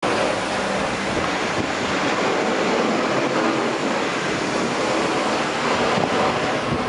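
Blizzard wind blowing hard across the microphone: a loud, steady rushing noise.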